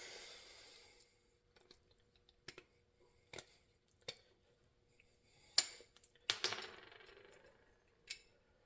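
Small metal parts of an antique Arcade Crystal coffee grinder being handled during disassembly: sparse light clicks and clinks, a few of them followed by a short hissing scrape.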